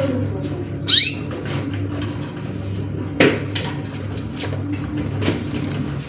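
A caged finch gives one short, bright chirp about a second in, over a steady low hum. A sharp knock comes just past three seconds, with fainter light clicks around it.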